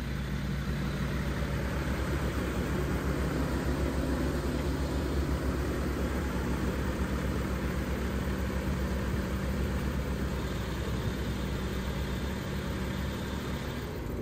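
2013 BMW X5's diesel engine running steadily, warming the oil before an oil change.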